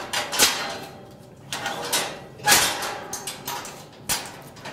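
Stainless steel cage door's padlock and latch being worked by hand: several sharp metallic clanks and rattles, each ringing briefly.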